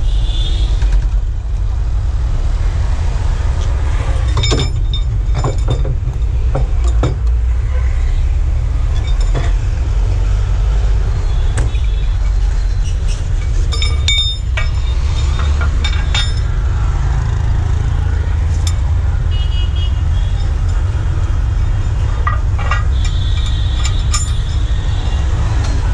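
Tow truck's diesel engine idling with a steady low rumble. Scattered metal clinks and clicks come from the steel wheel-lift cradle and bars as they are fitted around a front tyre, with a cluster of them near the end.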